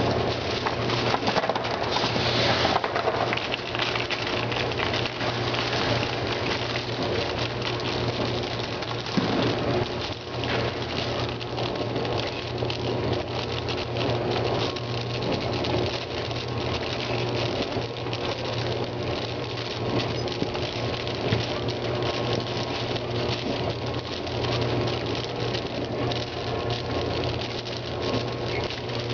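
Small pieces of gum pattering and rattling in a stainless-steel feeder hopper as the feeder runs, a dense steady crackle over a steady machine hum.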